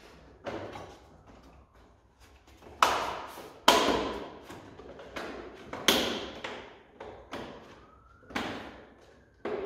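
A series of about six knocks and thuds, spaced a second or two apart, each dying away with a short ring; the loudest comes a little under four seconds in.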